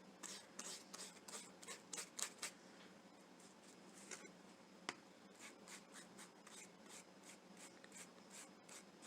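Faint, quick strokes of a paintbrush laying craft paint onto a small heart cutout, two or three strokes a second, with one light tick about five seconds in.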